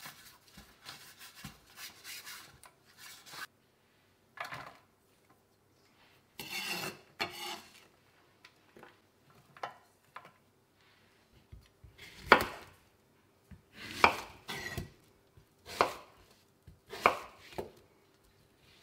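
A knife chopping courgettes on a wooden chopping board: about six sharp chops, roughly one a second, in the second half. Before that, softer rustling and scraping as chopped onion is spread by hand in a metal baking pan.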